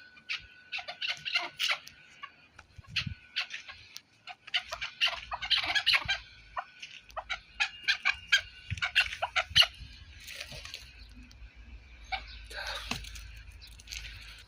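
Partridges calling, a run of short, sharp notes repeated in quick bursts that overlap one another, with a low rumble underneath from about a third of the way in.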